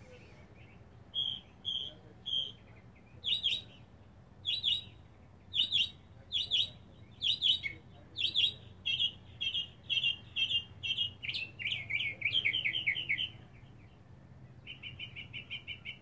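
Northern mockingbird singing: a string of short phrases, each repeated several times before switching to a new one, then after a brief pause a fast, even trill near the end.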